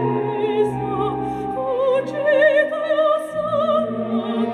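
Operatic singing with a wide vibrato over orchestral accompaniment, played back through a pair of 4-inch dual voice coil speakers in 3D-printed back-loaded horn enclosures. The voice holds long notes and shifts to new pitches a couple of times.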